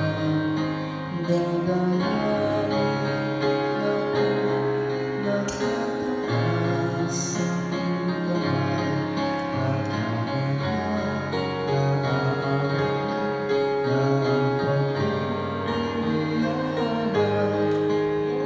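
Slow, gentle instrumental music with held chords and low notes that change every second or two.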